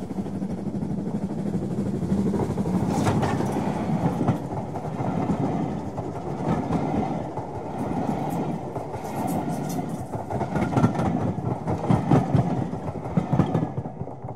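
A 00 gauge model train running past close by, its wheels rumbling and clicking over the rail joints.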